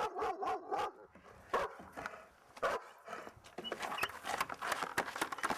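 A dog barking angrily at being teased: a quick run of barks in the first second, then single barks. A clatter of knocks and clicks follows in the second half.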